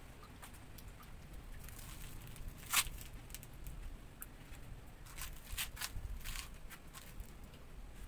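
Scattered small clicks and short rasps of hands handling a plastic cable tie and wiring around a motorcycle handlebar switch, with one sharper click about three seconds in and a quick run of rasping strokes near the end.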